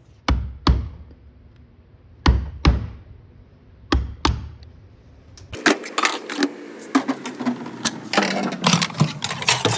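Metal parts of a 700R4 automatic transmission knocked and handled during teardown: three pairs of sharp knocks, then from about five and a half seconds in a busier run of clattering, scraping and ringing metal as parts are pulled and set down.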